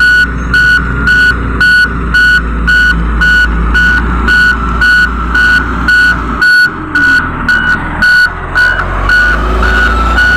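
Motor grader's reversing alarm beeping about twice a second over the steady rumble of its diesel engine running; in the last few seconds the beeps turn shorter and uneven.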